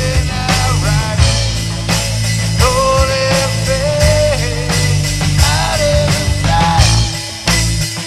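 Rock band jamming live: heavy bass and drums, with a wavering melodic line over them.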